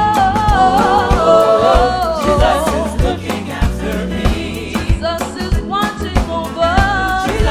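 Live gospel worship music: sung vocals held in long gliding notes over a band with regular drum hits and a low bass.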